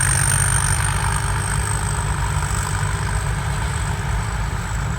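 Rice combine harvester's turbocharged diesel engine running steadily, a thin high whistle sounding over the deep engine note as the turbo spins.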